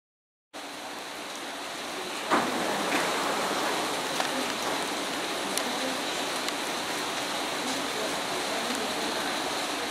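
Steady, even hiss of railway-platform ambience. It begins abruptly just after the start, with a sharp knock about two seconds in and a few fainter clicks after it.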